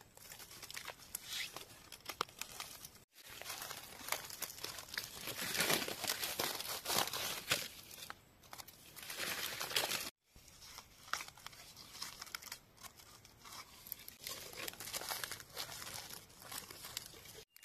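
Dry leaf litter rustling and crackling in irregular bursts as a mushroom with a deep-set stem is dug and cut out of the forest floor by hand. The crackle drops out briefly about three seconds in and again about ten seconds in.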